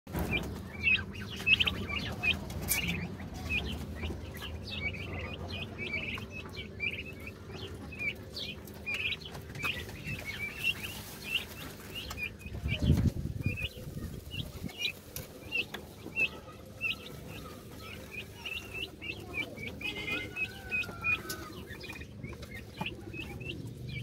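Young turkey poults peeping, many short high chirps over and over, while they dust-bathe and feed. About 13 seconds in there is a brief, louder flurry of wings in the dust.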